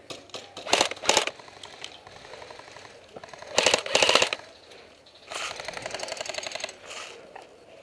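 Airsoft guns firing rapid full-auto bursts: two loud short bursts about one and four seconds in, then a longer, quieter burst.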